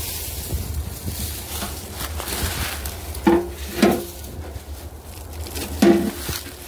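Footsteps crunching and rustling through deep dry fallen oak leaves, with a few louder thumps about three, four and six seconds in.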